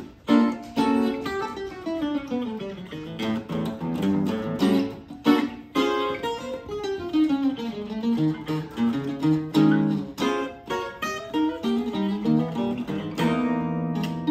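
Two Benedetto archtop guitars, La Cremona Azzurra and a 16-B, played together as a duet: running plucked lines over chords, with a strummed chord ringing out near the end.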